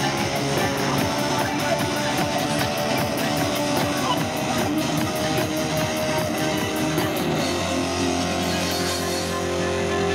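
Live rock band playing amplified electric guitars with a drum kit, the beat giving way to held chords near the end.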